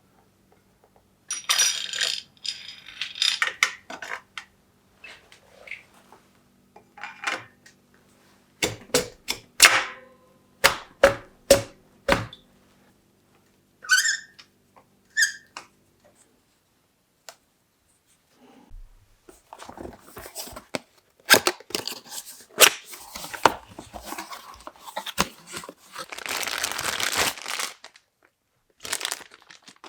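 Bicycle parts and hand tools being handled and fitted during a mountain bike build: a run of sharp metallic clicks and knocks, about six hard strikes in a row partway through, a couple of brief ringing metal tones, then a longer stretch of rattling and scraping near the end.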